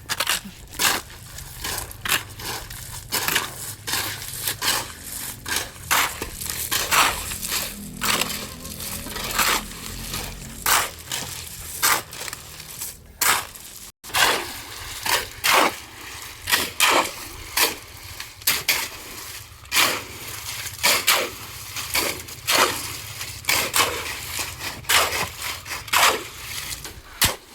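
Hand tools working concrete: repeated sharp scrapes and knocks, one or two a second, over a faint low rumble.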